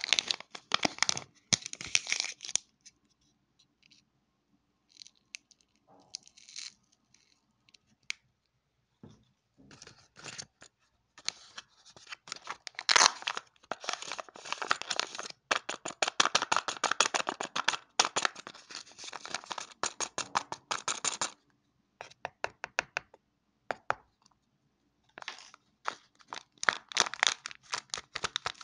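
Kinder Joy egg packaging peeled and torn open by hand: the foil lid pulled off the chocolate half and the seal torn from the toy capsule, crinkling and tearing in bursts. After the first couple of seconds there is a mostly quiet pause of several seconds; then comes a long stretch of dense crinkling, and more bursts near the end.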